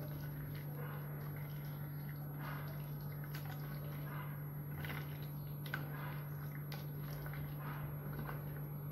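Faint wet squishing of a hand kneading chicken pieces in a yogurt-and-spice marinade in a stainless steel bowl, over a steady low hum.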